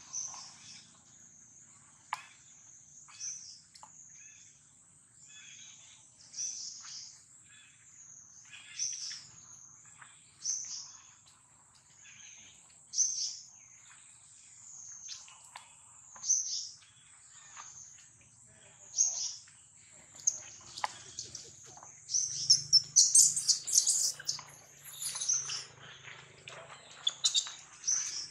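Baby long-tailed macaque crying in short, high squeals every couple of seconds, over a constant high, wavering drone. From about 22 to 26 seconds the cries turn into a loud run of shrill screeches as the adult monkeys scuffle.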